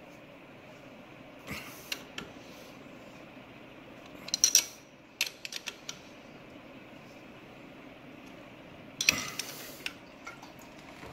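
Scattered metallic clinks and clanks of tools and motorcycle parts being handled, with a cluster about four and a half seconds in the loudest and more near the end, over a steady low background hum.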